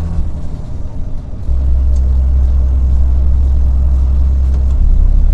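Truck engine heard from inside the cab: about one and a half seconds in, a loud low drone cuts in and holds steady, growing louder again near the end. The driver calls it a roar and takes it for the air compressor switching on.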